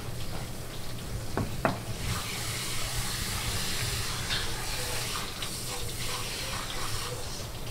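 Water spraying from a pull-down sink sprayer onto a large yellowtail section as the blood is rinsed off, a steady hiss of spray that grows stronger about two seconds in. A couple of sharp knocks about one and a half seconds in.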